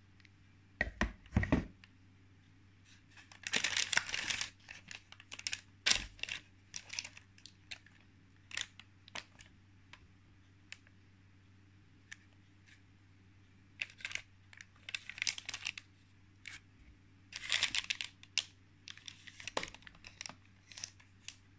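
A spatula scraping and smoothing cake batter in a parchment-lined baking tin, with irregular scrapes, rustles of the baking paper and scattered light clicks. Two longer scraping passes come a few seconds in and again near the end.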